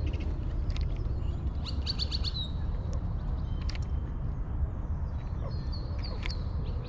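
Birds chirping: a quick run of high notes about two seconds in and a short series of notes near the end, over a steady low rumble, with a few sharp clicks.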